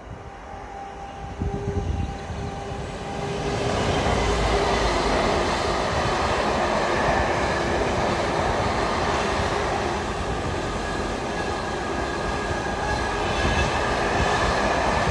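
Container freight train approaching and passing close by: the sound builds over the first few seconds as the locomotive comes under, then the loaded container wagons run past in a steady noise of wheels on rails.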